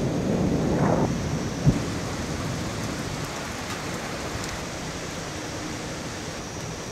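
Thunder rumbling over steady rain, the rumble dying down after the first couple of seconds, with one short sharp thump about two seconds in.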